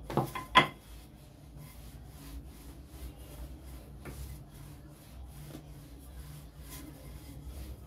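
Hands rubbing oil over a sheet of rolled chapati dough on the counter, a soft steady rubbing. Two sharp knocks come within the first second.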